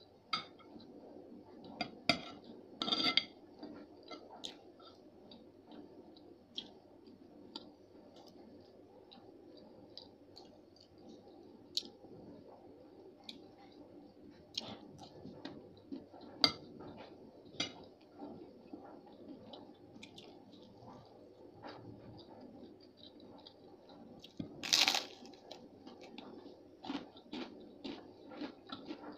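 A metal spoon and fork clink and scrape on a plate, with chewing in between. There is a burst of louder clinks about three seconds in and one louder, longer crackle near the end.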